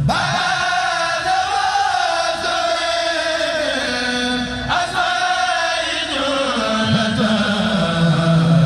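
A Mouride kurel, a group of male chanters, chanting a khassida (Sufi devotional poem). The voices hold long, sliding notes with no break.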